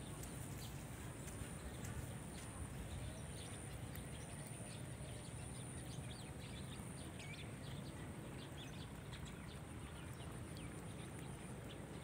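Open-field ambience: a steady low rumble with many short, faint bird chirps scattered throughout, and a thin high-pitched hum that fades out about seven seconds in.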